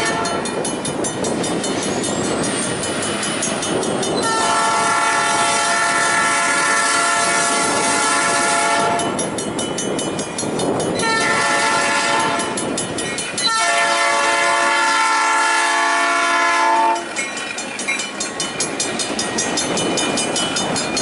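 Single diesel locomotive's horn sounding three blasts at a grade crossing: a long one, a shorter one, then another long one that stops about three quarters of the way in. The locomotive's running noise and wheels clicking over the rail joints carry on between and after the blasts.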